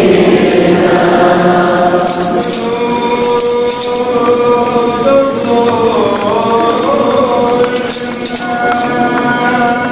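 Voices chanting a slow liturgical hymn in long held notes. Small metal bells jingle in two bursts, about two seconds in and again near the end.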